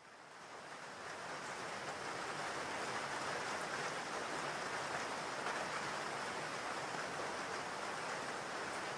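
Steady rainfall ambience, fading in over the first couple of seconds and then holding even.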